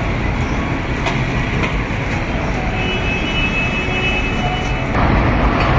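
Steady city street noise with the low rumble of road traffic.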